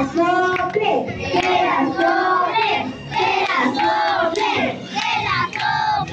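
A group of party guests singing a birthday song together, led by a woman's voice through a microphone and PA, with some hand clapping.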